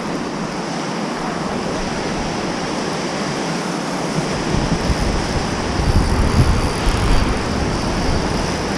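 Rushing whitewater of a river, a loud, steady roar. From about halfway, an uneven low rumble on the microphone joins it.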